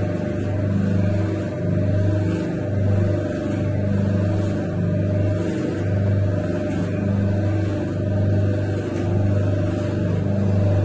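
Horizontal-shaft bread dough mixer running, its motor humming steadily as the paddle shaft churns thick flour dough, with a slow regular rise and fall in loudness about every second and a half.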